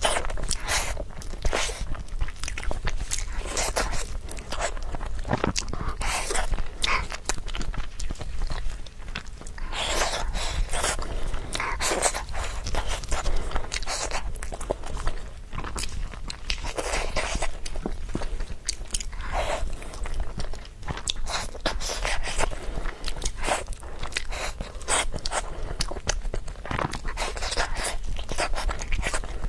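A person chewing and biting grilled pork close to the microphone: continuous crunching and chewing with many small irregular clicks and a louder crunch every second or two.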